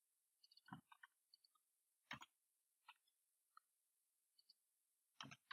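Faint computer keyboard keystrokes and mouse clicks. A few scattered taps come in small clusters, with near silence between them.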